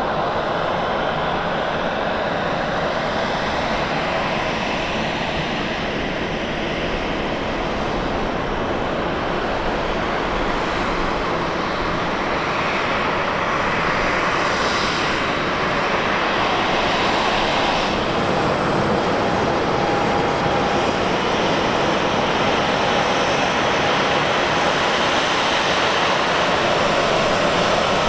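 Boeing 737-800's CFM56-7B turbofan engines at taxi power, a steady jet whine and rush that grows a little louder in the second half as the airliner taxis nearer.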